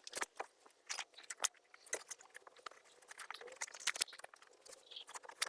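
Faint, irregular crackling and rustling of the molded rear car carpet being handled and laid into place on the floor pan.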